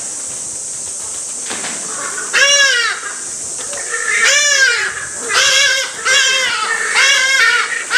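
Hadada ibis calling loudly: a run of harsh, arching cries that starts about two seconds in and repeats roughly once a second, over a steady high hiss.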